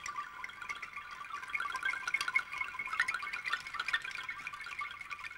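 A flock of birds chattering: a dense, continuous twitter of many short high calls overlapping.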